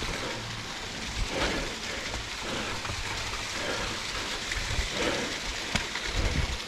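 Small waterfall splashing steadily down the rocks, with irregular low thumps of footsteps on rock, heaviest near the end.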